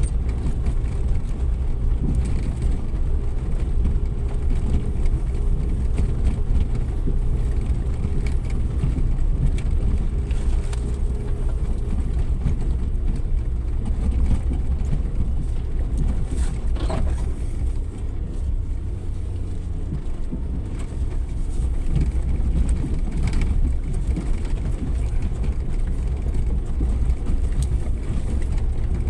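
Suzuki Jimny 4x4 driving off-road: a steady low rumble of engine and drivetrain, with a few short knocks over rough ground.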